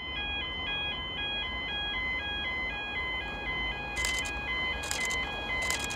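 Electronic warning alarm at a railway station sounding a repeating pattern of high beeping tones as a Class 333 electric train approaches. Short bursts of hiss come about four and five seconds in.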